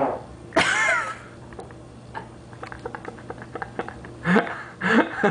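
Two short, loud pitched sounds in the first second, then a quiet stretch of small clicks, then bursts of a woman's laughter starting about four seconds in.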